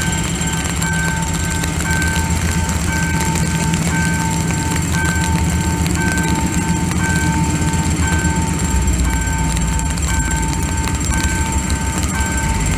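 Freight train hauled by a CRRC Qishuyan CDD5A1 diesel locomotive passing over a level crossing with a steady low rumble. The crossing's warning signal beeps in a two-tone pattern about twice a second, over the hiss of heavy rain.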